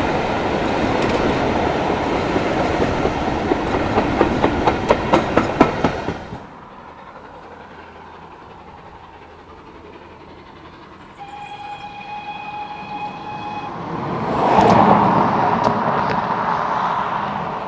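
A steam-hauled train running close by, its wheels clicking rhythmically over the rail joints, until the sound cuts off abruptly about six seconds in. After a quieter stretch, a locomotive whistle sounds steadily for about two seconds. Then a train's noise swells to a peak and fades away.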